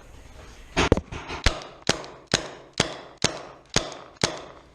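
Paintball marker firing a steady string of single shots, about two a second, each a sharp pop with a short echo.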